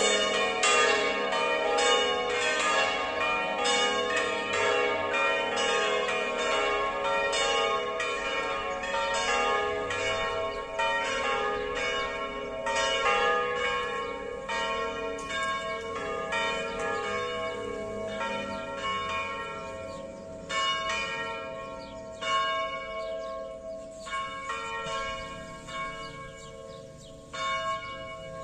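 Full peal of five electrically rung church bells tuned to an A-flat major scale (A♭3, B♭3, C4, D♭4, E♭4), the strikes overlapping and ringing on. Over the last ten seconds or so the strikes come further apart and the peal gets quieter.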